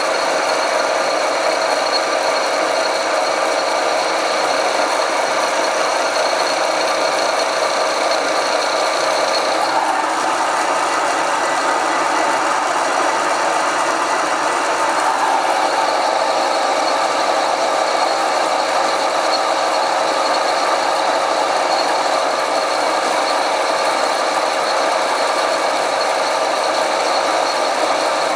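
Metal lathe running under load, its insert cutting tool taking a facing cut across a metal face plate: a steady machine drone with cutting noise. A high steady whine drops out about ten seconds in.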